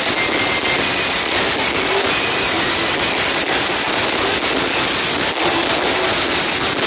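Loud nightclub din, dance music and crowd noise mixed into a dense, distorted roar by an overloaded phone microphone.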